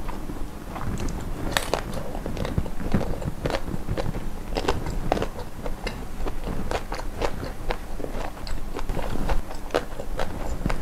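Close-miked mouth eating sounds: chewing with many sharp, irregular crunches and clicks.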